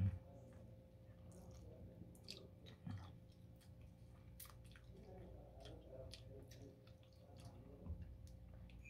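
A person chewing and eating chicken adobo by hand, with many small mouth clicks scattered through and a few soft thumps, over a faint steady low hum.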